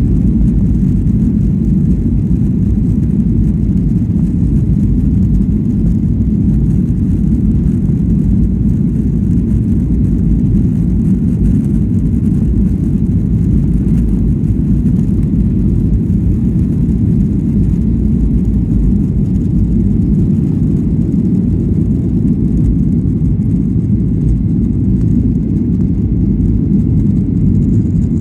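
Cabin noise of a Boeing 737-800 on its takeoff roll: a steady, loud low rumble of the engines at takeoff power and the wheels running down the runway.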